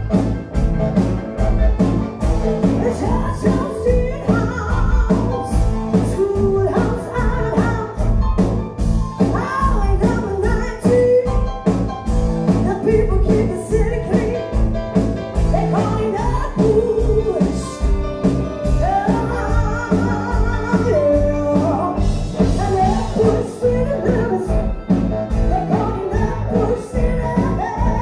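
Live band playing on stage, with a drum beat, electric guitars, keyboard and saxophones, and a woman singing lead from about four seconds in.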